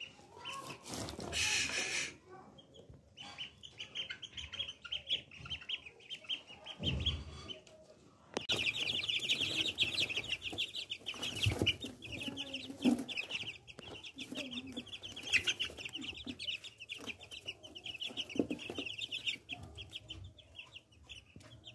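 Duckling peeping in a fast stream of high calls, patchy at first and nearly unbroken from about eight seconds in. A short rustle near the start and a few dull bumps come in between.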